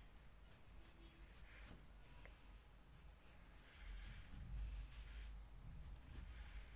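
Faint scratching of a pencil sketching on paper, in short irregular strokes, with a soft low rumble swelling briefly about four seconds in.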